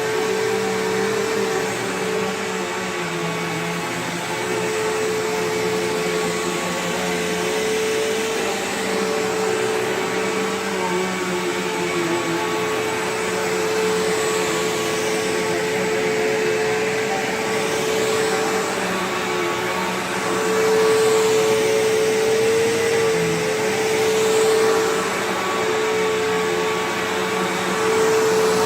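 Bissell PowerGlide Platinum bagged upright vacuum cleaner running, its motor giving a steady whine over the rush of airflow. It gets a little louder about two-thirds of the way through.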